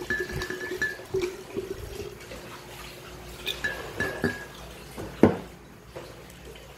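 Soju poured from a green glass bottle into a glass pitcher, glugging in pulses with small clinks of glass. A single sharp knock a little past five seconds in, the loudest sound, as the pouring ends.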